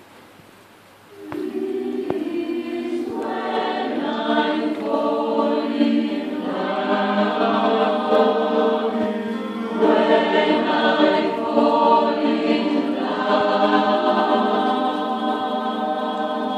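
Mixed choir of men's and women's voices singing sustained chords in several phrases. It comes in about a second in after a short pause.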